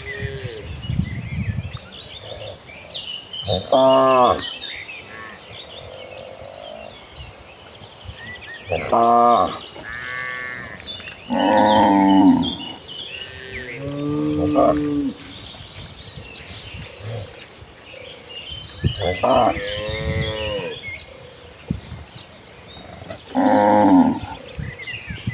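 Domestic cattle mooing repeatedly, about seven calls spread through, some overlapping.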